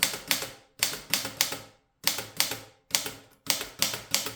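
A 1952 Erika model 8 manual typewriter being typed on: sharp typebar strikes in quick runs of about four a second, with short pauses between the runs.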